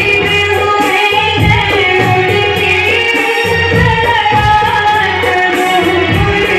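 A girl singing a patriotic song in a high voice over a backing track with a steady beat.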